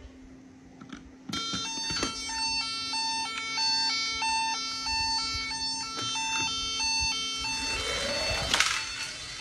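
Toy police car's electronic siren: two notes alternating quickly in a steady hi-lo pattern, starting about a second in and stopping near the end. A short rushing noise rising to a sharp peak follows as the car moves off.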